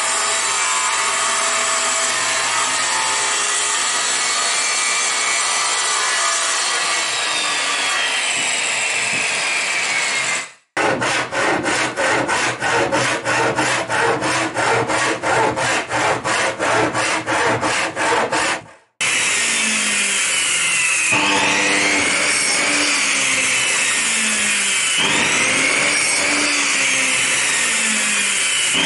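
Circular saw cutting through plywood, its motor whine falling as it runs down about ten seconds in. Then a backsaw cutting plywood in quick, even strokes, about three a second, for some eight seconds. In the last ten seconds a power tool runs, its pitch rising and falling.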